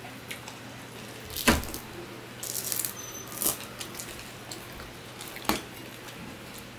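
Eating by hand from a stainless steel plate: fingers mixing rice and fish, with a few sharp clicks and a short crackly patch, over a faint steady hum.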